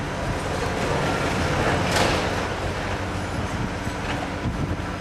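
Hydraulic excavator's diesel engine running steadily as it demolishes a brick wall, with a crash of falling masonry and rubble swelling and dying away about two seconds in.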